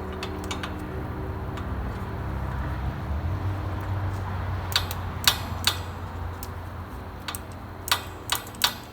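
A handful of sharp, separate metallic clicks and clinks from hand tools and battery hardware being handled, over a steady low hum.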